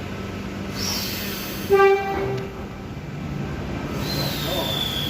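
V set double-deck intercity electric train departing: one short horn blast about two seconds in, the loudest sound, over a steady low rumble. Near the end a high squeal slides down in pitch.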